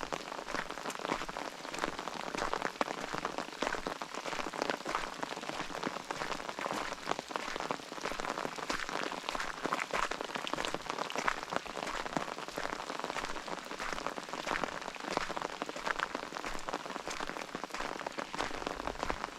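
Steady rain falling, a dense patter of many separate drops striking close by.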